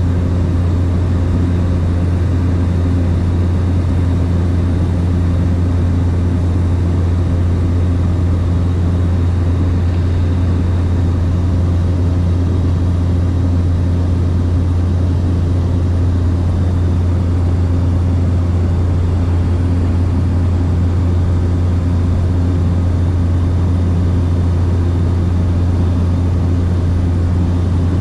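Steady, loud, low drone of a light aircraft's engine and propeller, heard from inside the cabin in level cruise.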